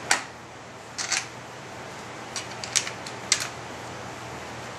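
About six sharp, irregularly spaced clicks and knocks from hands working on a Marlin Model 795 .22 rifle during reassembly, the loudest right at the start and a close pair about a second in.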